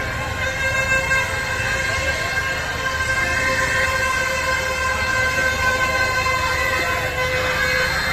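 Crowd chatter and bustle of a busy open-air street fair, with a steady, unchanging pitched tone over it.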